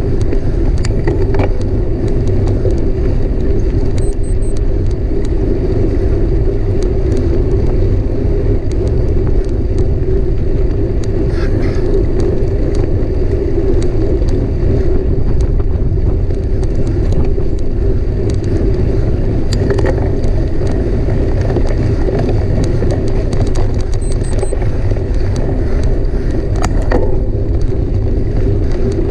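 Mountain bike ridden at speed: steady rumble of tyres and wind on the microphone, with a few sharp clicks and rattles from the bike.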